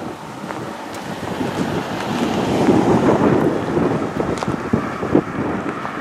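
Wind buffeting the microphone, a gust swelling to its loudest about halfway through, with a few faint clicks.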